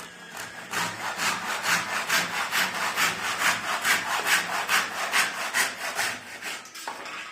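Hand saw cutting through wood in steady back-and-forth strokes, about two a second, tailing off near the end.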